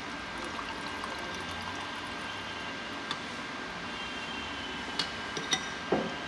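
Milk being poured into a bowl of melted butter and flour, a faint steady pouring sound, followed near the end by a few light clicks.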